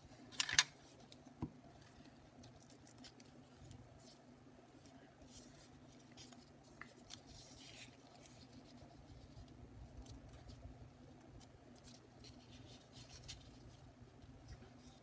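Light rustling and scratching of torn watercolour paper strips being handled, slid and pressed down onto a sheet, with a sharp click about half a second in.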